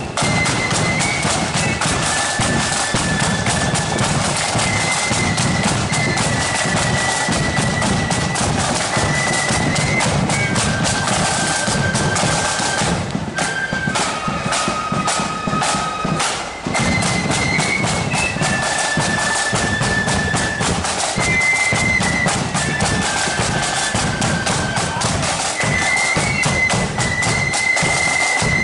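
Marching flute band playing a tune in unison on high-pitched flutes over side drums and bass drum, with a loud, steady sound and a brief break in the melody about halfway through.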